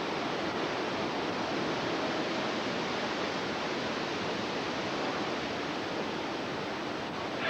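Hurricane wind blowing hard: a steady, dense rushing noise without a break.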